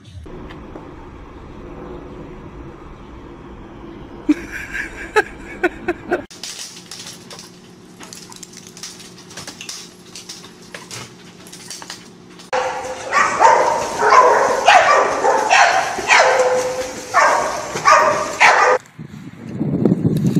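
A dog yipping and barking, a quick run of high-pitched calls that lasts about six seconds in the second half, after a few fainter yips and some scattered knocks.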